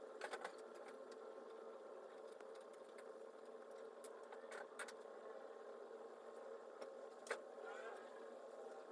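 Very quiet: a faint steady hum, with a few light clicks and taps of hand work on a car's steering wheel as its screws are put in. The loudest tap falls near the end.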